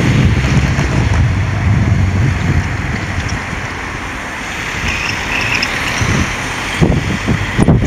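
Wind buffeting the microphone over the steady rumble of road traffic, with a couple of sharp bumps near the end.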